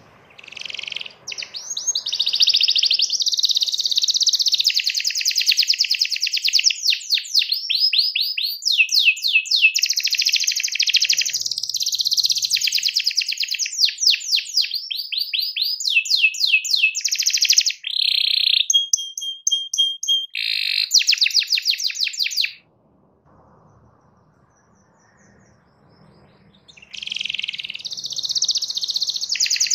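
Domestic canary singing a long, fast song of rapid trills and rolls, with a steady held note about two-thirds of the way through. The song breaks off for about four seconds near the end, then starts again.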